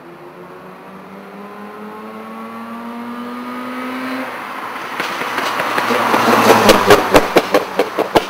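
Mazda RX-7's rotary engine accelerating toward and past, its note climbing steadily for about four seconds. It then gets much louder as the car goes by, with a rapid string of about ten loud exhaust backfire cracks over the last two seconds.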